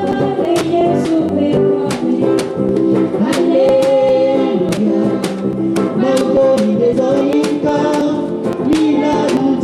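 Voices singing a melody together, over a steady beat of sharp strikes about three a second.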